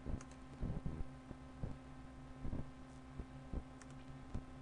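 A steady low electrical hum from the recording setup, with irregular soft low thumps. There are faint double clicks of a computer mouse just after the start and again near the end.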